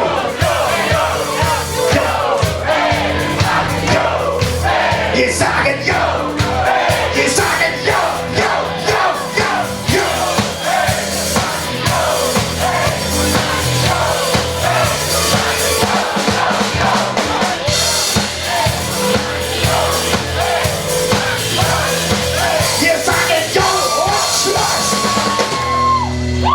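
Live band music with a steady beat, with a crowd of voices singing and shouting along. Near the end a high held note slides down.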